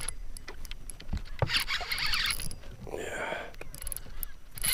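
A spinning fishing reel being cranked in bursts, its gears whirring as a lure is retrieved. A lower swish comes about three seconds in.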